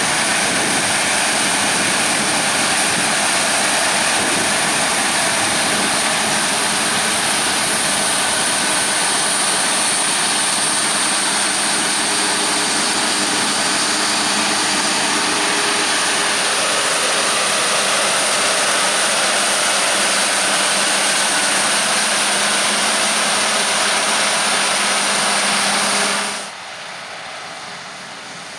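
Harvest machinery working in the field: a loud, steady mechanical running noise with a high-pitched whine over it. It cuts off abruptly near the end, leaving a quieter background.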